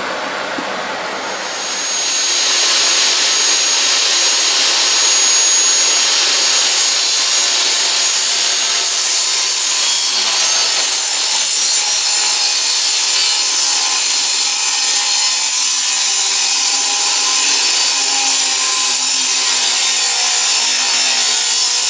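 Power saw cutting through wood: the running saw gets louder about two seconds in as the blade bites into the board, then keeps up a long, steady cut.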